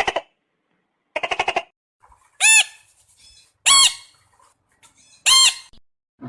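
An animal calling. It gives two short bursts of rapid chattering, then three short, loud, high squawks spaced about a second and a half apart.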